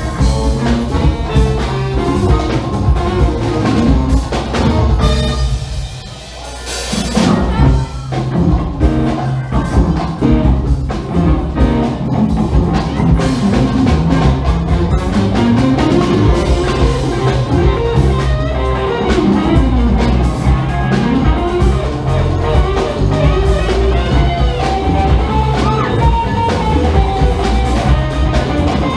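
Live funk band playing: tenor saxophone, electric guitar, bass, drum kit and percussion. The music thins out briefly about six seconds in, then the full band comes back in on a loud hit a second later.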